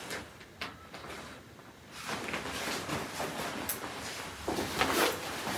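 Leather jacket rustling as the wearer moves her arms in it: a soft scraping with a few light clicks, fuller from about two seconds in.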